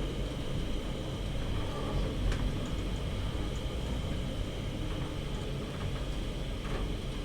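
Passenger lift car travelling upward between floors: a steady rumble with a faint, steady high whine, and a couple of light clicks about two seconds in.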